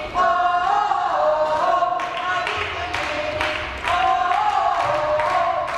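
A group of voices singing a short chant, the same phrase of a few stepped notes twice, with hand claps in between.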